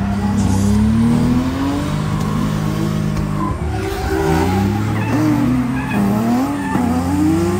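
Drift car engines revving hard: the pitch is held level, then rises and falls several times as the throttle is worked, with tyres skidding on the track.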